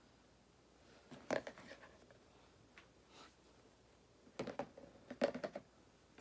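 Handling noise: a few short, light knocks and rubs, one about a second in and a quick cluster around five seconds in, as the phone doing the filming is grabbed and moved.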